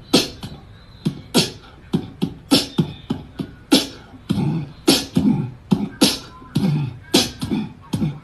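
A cat hissing and spitting in short, sharp bursts, two or three a second at an irregular pace, the sound of a frightened cat on the defensive.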